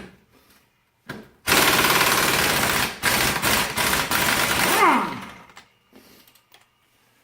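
Impact wrench hammering on a bolt for about three and a half seconds, then its motor winding down with a falling whine.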